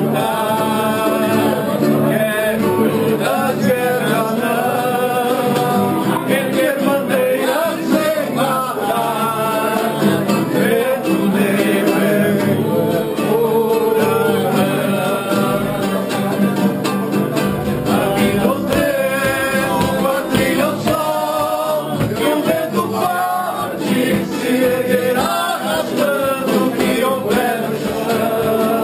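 A group of men singing together, accompanied by two strummed acoustic guitars, one full-size and one small.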